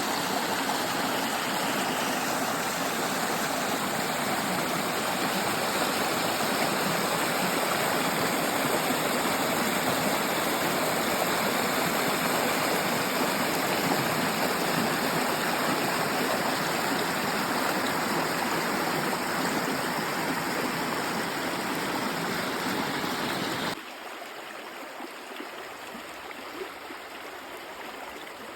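Babbling stream, water flowing steadily; the sound drops abruptly to a quieter level near the end.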